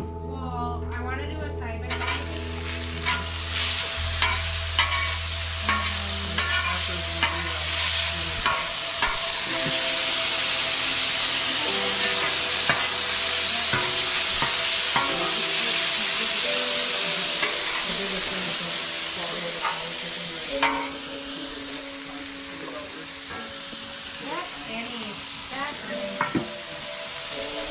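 Shaved steak sizzling on a flat-top griddle, with metal spatulas scraping and clacking against the steel plate as the meat is chopped and turned.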